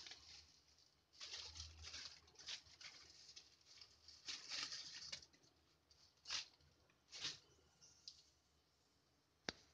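Mustard oil heating in an open aluminium pressure cooker, faintly crackling and hissing in short irregular spurts. A single sharp click comes near the end.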